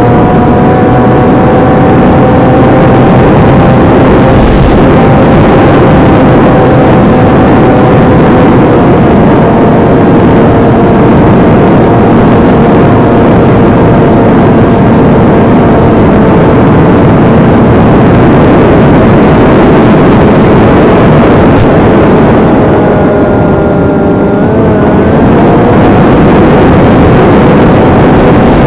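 Electric motor and propeller of a Versa Wing RC flying wing running in flight: a steady whine over a loud rushing noise, its pitch dipping briefly about 24 seconds in, then coming back up.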